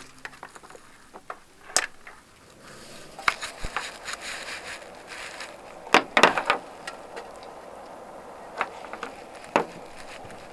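Wire leads and small parts being handled, with several sharp clicks and taps. A couple of seconds in, a steady whir sets in and holds as the power supply is switched on to test the Peltier cooling module.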